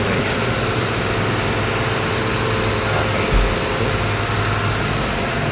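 6.0 L LS V8 engine idling steadily, with a brief low thump about three and a half seconds in.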